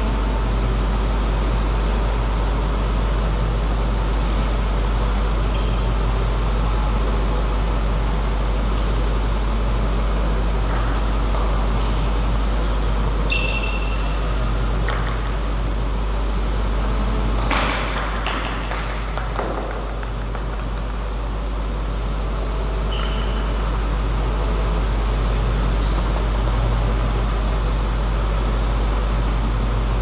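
Steady low hum and hiss of the hall's background noise. Two short high squeaks or pings come through it, one about halfway through and one about two-thirds of the way through, with a few faint clicks in between.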